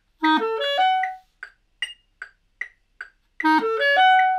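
Clarinet playing a short rising run of about five notes that ends on a held note, twice, over metronome clicks at about two and a half a second. This is a slow practice drill on the B natural to D sharp interval, with one note added on either side and kept in rhythm.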